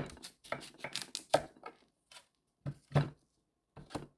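Kitchen knife cutting through a firm Korean radish and knocking on an end-grain wooden cutting board: a quick run of cuts in the first two seconds, then a few separate louder knocks.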